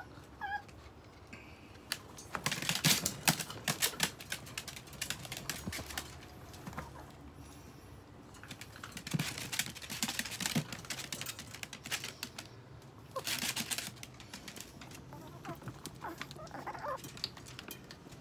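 Chihuahuas scrambling about in a wire pen, making three flurries of rapid clicking and rattling with quieter gaps between.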